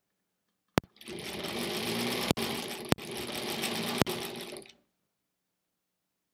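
1938 Kenmore Model 38 sewing machine running, stitching through pieced fabric for about four seconds and then stopping. A sharp click comes just before it starts, and a few more sharp clicks sound during the run.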